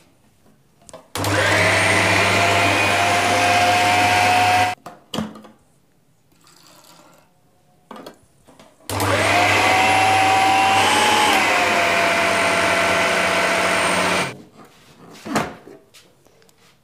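Electric food chopper's motor run twice, for about three and a half seconds and then about five seconds, its pitch rising as each run spins up, chopping green chillies, coriander, ginger and garlic with a little water into a coarse green masala. A short knock near the end as the motor top is lifted off the bowl.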